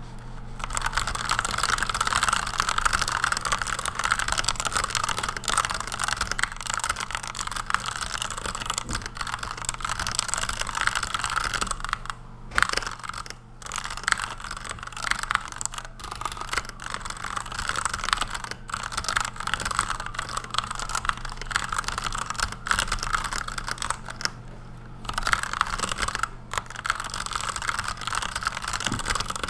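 Fast continuous typing on a Redragon Kumara K552 mechanical keyboard with lubed Outemu Red linear switches: a dense stream of key clacks, broken by a couple of brief pauses and a slightly longer one about four-fifths of the way through.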